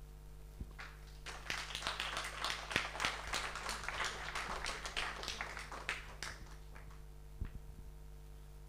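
A small audience applauding for about five seconds, dying away; a few isolated knocks follow.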